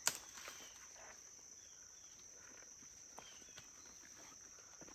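Faint, steady high-pitched drone of insects, with a sharp knock right at the start and a few faint clicks and taps after it.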